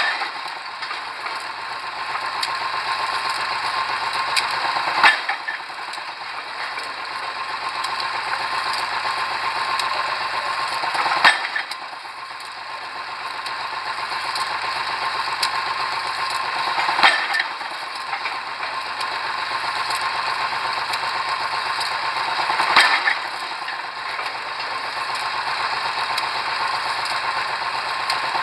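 Pile driver hammer striking a pile with a sharp blow roughly every six seconds, over the rig's engine running steadily between strikes.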